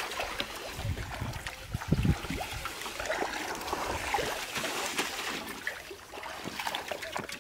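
Water trickling and splashing, with scattered small knocks and a few dull thumps in the first two seconds.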